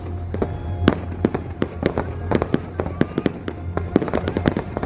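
Aerial fireworks bursting overhead in a rapid barrage of sharp bangs and crackles, several a second, with show music playing steadily underneath.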